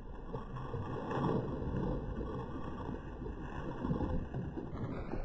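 Shallow pond water sloshing and splashing around a wader's legs as he gathers and throws a hand cast net, a steady uneven watery noise.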